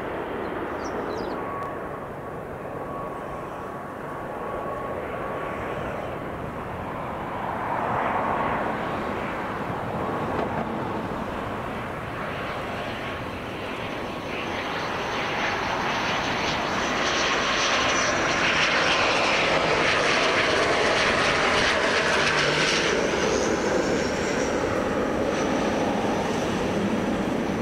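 Airliner engines running, swelling from about halfway through to their loudest in the second half, with a steady high whine above the engine noise that glides briefly upward near the end.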